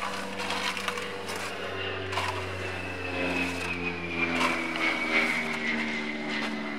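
An engine drones steadily, its pitch slowly falling, with a few short scrapes of a trowel on wet stucco over it.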